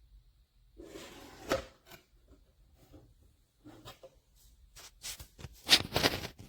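Rustling and handling noises with scattered clicks and knocks; a short burst of rustling with one sharp click about a second and a half in, and a denser, louder cluster of clicks and rustling about five to six seconds in.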